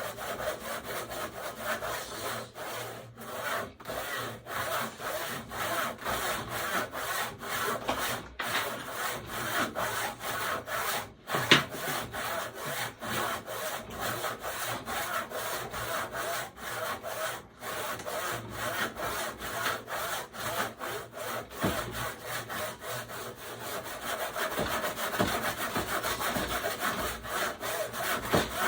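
Handsaw cutting through wood in a steady run of back-and-forth strokes. The saw does not seem too sharp. One sharp knock comes about a third of the way in.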